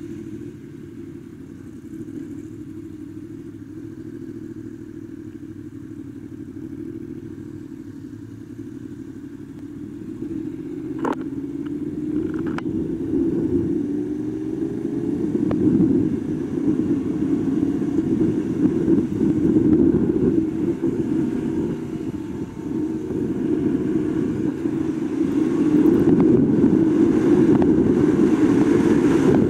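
2021 Yamaha R1's crossplane inline-four idling steadily, then pulling away with two clicks about eleven seconds in and rising in pitch and loudness as it accelerates. Wind rushes over the microphone near the end.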